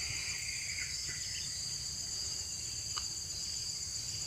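Steady, high-pitched insect chorus: a continuous shrill drone in a few tight pitch bands.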